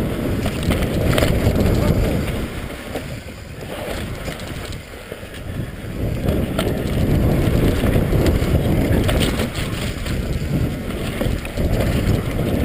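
Mountain bike riding down a dirt forest trail, heard from a helmet camera: wind buffeting the microphone over the rumble of tyres on dirt and roots, with bike rattle and clicks. It eases off for a couple of seconds a few seconds in.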